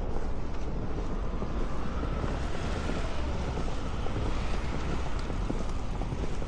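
Blizzard wind blowing steadily and buffeting the microphone, with a low rumble.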